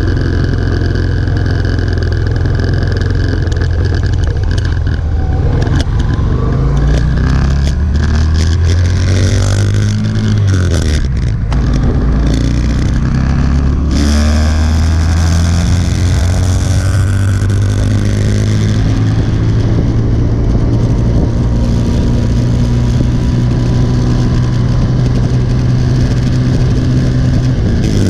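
Motorcycle engine pulling through the gears, its note climbing and then dropping at a gear change about ten seconds in, before settling to a steady cruise. Wind rushes over the microphone throughout.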